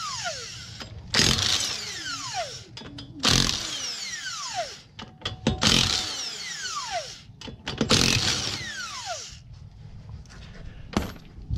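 Cordless impact wrench spinning off the lug nuts of a car wheel in four bursts about two seconds apart, each ending in a falling whine as the motor winds down. A single sharp knock near the end.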